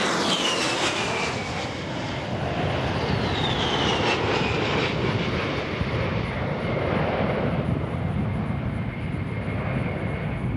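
A-10 Thunderbolt II's twin TF34 turbofan engines flying by: a rushing roar with a high whine that falls in pitch twice in the first few seconds, then holds steady.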